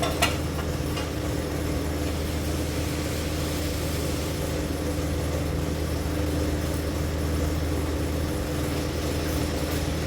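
A steady, low mechanical hum with a few constant tones, like a motor or fan running, with two or three sharp clicks at the very start.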